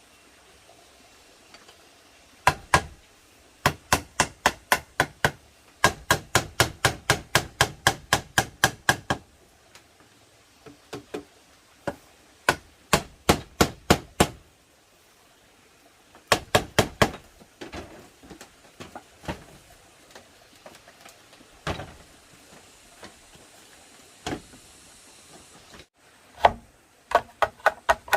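Hammer blows on bamboo in quick runs of about four a second, with short pauses between the runs.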